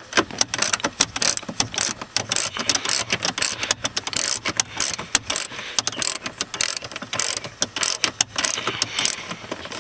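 Hand socket ratchet clicking in quick, irregular runs as it turns a nut on a bolt.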